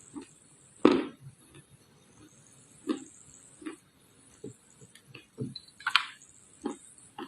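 Dried red clay crunching in a series of separate crisp snaps, about one or two a second at an uneven pace, the loudest about a second in and again near six seconds in.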